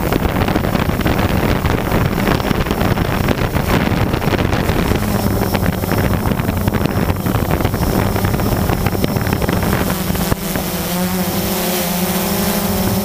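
Drone's propellers and motors whirring close up as it lifts off and flies low over the ground, a steady hum mixed with rushing air. About ten seconds in the rushing drops away and a smoother, steadier hum comes through as it climbs.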